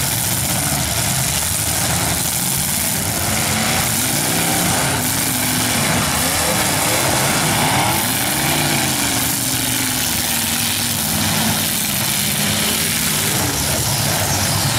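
Several demolition derby cars' engines running at once, revving up and falling back again and again over a constant loud din.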